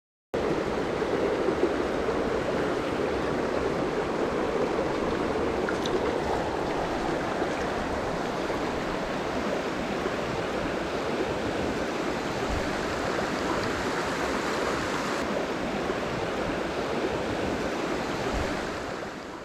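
Mountain stream water running steadily over rocks, a constant rushing that starts abruptly and fades out near the end.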